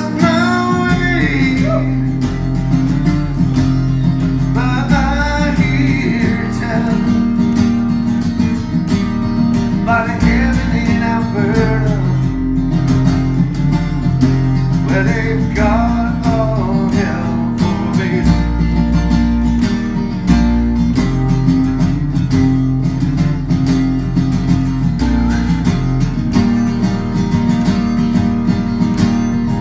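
Amplified acoustic guitar played steadily over deep bass notes that change every few seconds, with a gliding melody line that bends up and down roughly every five seconds.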